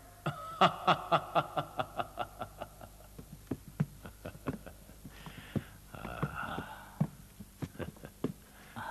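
A quick, even run of sharp wooden-sounding knocks, about five a second, fading over the first three seconds. Scattered single knocks follow.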